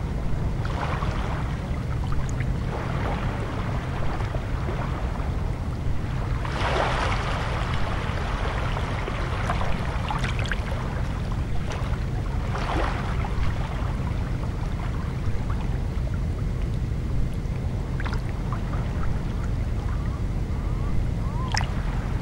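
Small sea waves lapping and washing on a pebble shore, a soft swell every few seconds with the largest about a third of the way in, over a steady low rumble.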